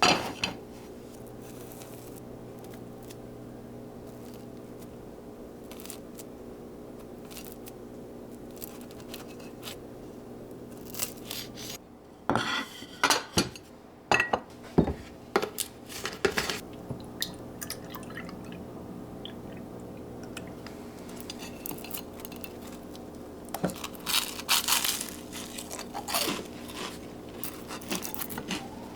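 Dishes, glass and cutlery being handled in a kitchen: scattered clinks and knocks in two busy spells, over a steady low hum.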